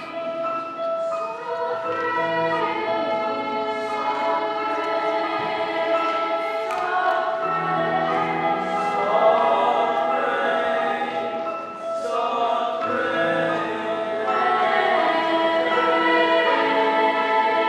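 Middle school choir singing a slow choral piece with piano accompaniment, in held, overlapping phrases, with a brief break about two-thirds of the way through.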